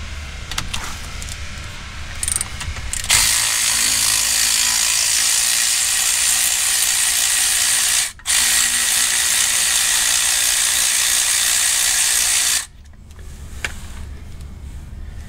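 Cordless ratchet running in two long spins, about five and four seconds long with a brief stop between them, backing out the bolts that hold the brake backing plate on a Ford 8.8 rear axle. A few light tool clicks come before it starts.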